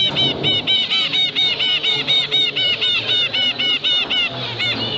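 Zebra finches calling: a fast, even series of short, beeping calls, about five a second, that thins to a few scattered calls from about four seconds in.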